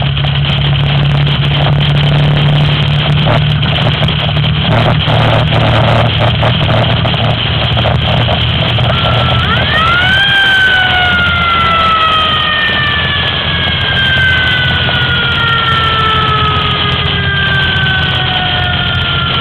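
A fire engine's engine runs under way with road noise and some knocks and rattles in the first half. About halfway through, its siren winds up quickly to a high wail, then slowly winds down, falling in pitch through the rest.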